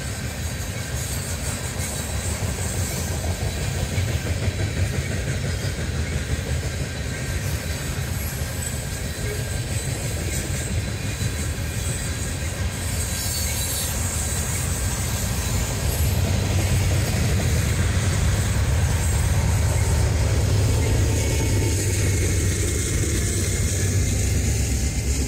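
Tank cars of a long ethanol unit train rolling past: a steady rumble of steel wheels on rail with clickety-clack over the joints, a little louder past the middle.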